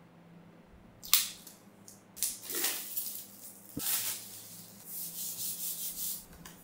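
Plastic shrink wrap being cut and peeled off a cardboard tripod box: crinkling and rustling, with a sharp crackle about a second in and a short click near the middle.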